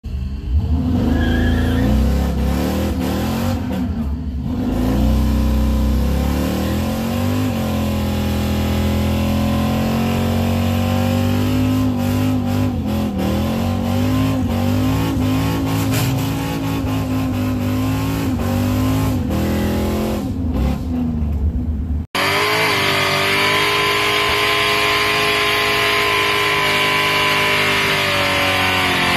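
Engine heard from inside a truck's cab, rising and falling in pitch as it drives along. After a cut about 22 seconds in, a car doing a burnout: engine held at steady high revs with tire squeal as the tires smoke.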